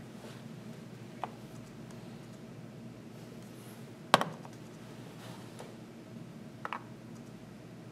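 Glass chess pieces clicking against the board as they are picked up and set down: a sharp click about four seconds in, a faint one about a second in and a small double click near the end, over a low steady hum.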